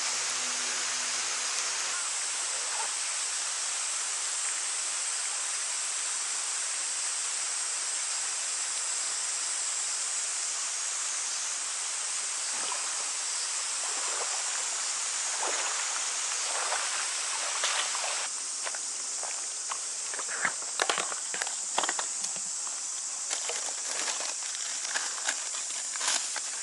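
Heavy rain pouring steadily onto the water. About two-thirds of the way through, the rain noise drops away and leaves a high, steady drone of cicadas. Near the end there are scattered clicks and rustles from a soft tackle bag being opened and rummaged through.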